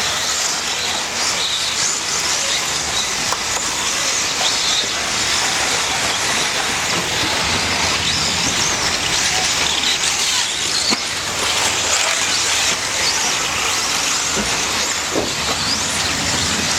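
Several electric 4WD radio-controlled off-road buggies racing together: a steady mix of high motor whines that rise and fall, with tyre and track noise.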